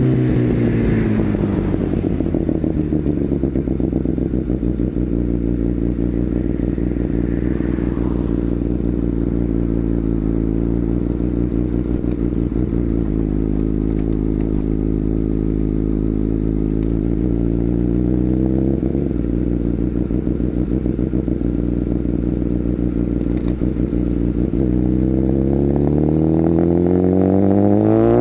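Kawasaki ZX-10R inline-four engine through a Mivv aftermarket exhaust, dropping in pitch as the revs fall and then running steadily at low revs for a long stretch. Near the end it revs back up with a rising pitch as the bike accelerates.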